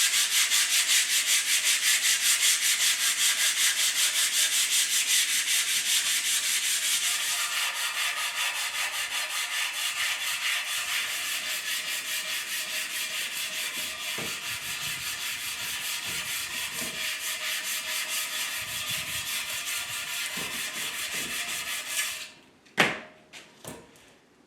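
A loud, steady hiss with a fast, even flutter, as the scroll saw is cleaned up; it cuts off about 22 seconds in and is followed by a few sharp knocks.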